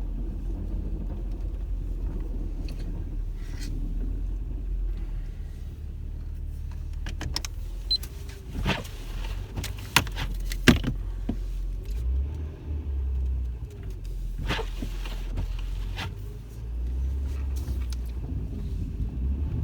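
Minivan engine running at low speed while the van backs up over snow, with a few sharp clicks and knocks in the middle.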